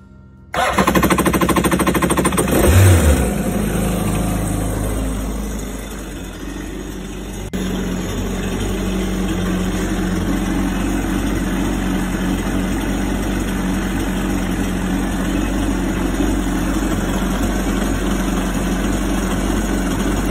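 Kawasaki STX-15F jet ski's four-cylinder four-stroke engine starting up about half a second in, its first start after being fogged for winter storage. It revs up briefly about two seconds in, then settles into a steady idle.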